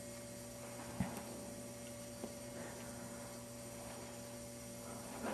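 Low, steady electrical hum with faint hiss, and a soft click about a second in.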